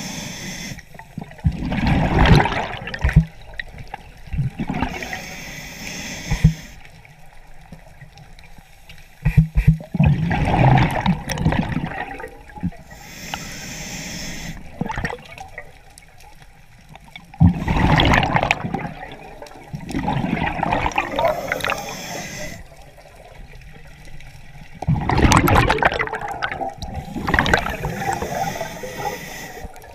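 Scuba diver breathing through a regulator underwater: a thin hiss on each inhale, then a loud rush of exhaust bubbles on each exhale, in a slow cycle of about four breaths.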